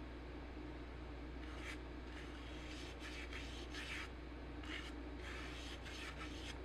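Irregular short rubbing and scraping strokes as the jacket is worked by hand, over a steady low hum.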